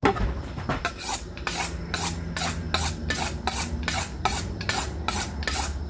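Kitchen knife being honed on a honing rod: quick, even strokes of blade scraping along the rod, about two to three a second, over a low steady hum.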